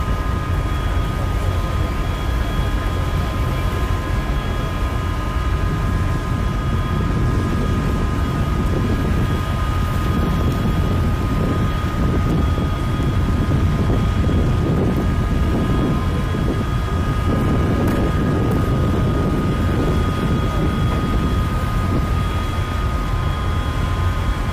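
A Navy warship's machinery running as the ship glides past close by: a steady low rumble with a constant whine of several high tones over it.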